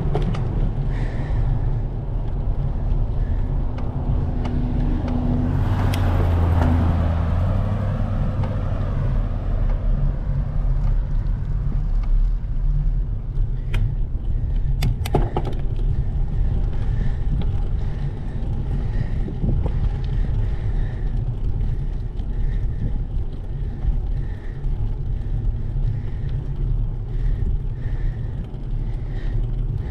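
Wind rushing over an action camera's microphone on a moving bicycle, a steady low rumble with road noise. A motor vehicle swells past about six seconds in, and a few sharp clicks come around fourteen to fifteen seconds in.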